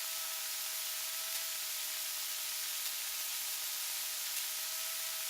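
Steady hiss with a faint, even whine in the intercom audio of a Cessna 172 cockpit, with no engine rumble under it.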